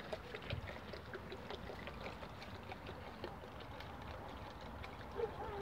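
Water pouring and glugging out of a large plastic bottle into a plastic tub, with many small splashes and clicks.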